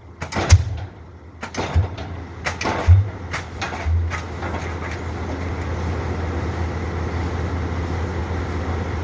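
Diesel pile hammer firing its last few blows, about a second apart, as it is being stopped. From about four seconds in, a steady low engine drone takes over.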